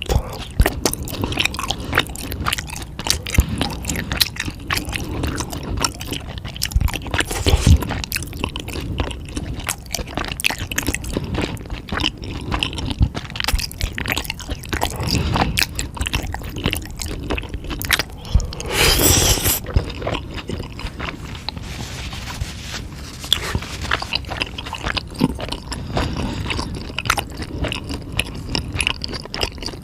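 A person chewing and biting crunchy, crackly food close to the microphone: dense, irregular crunches and wet clicks throughout, with one louder, longer crunch about two-thirds of the way through.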